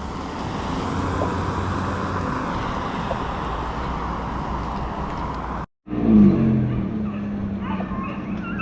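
Vehicle engine and road noise while driving, a steady low hum. The sound cuts out briefly about six seconds in, then returns louder with a low engine note.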